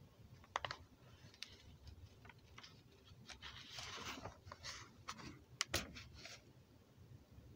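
Faint rustling and scattered light clicks of paper pages being handled and turned in a book, with a soft rustle of the page turning about four seconds in.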